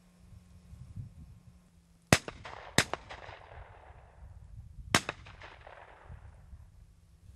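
Three shotgun shots at passing doves and wood pigeons. Two come in quick succession about two seconds in, and a third about two seconds later; each is followed by a long echo that rolls away.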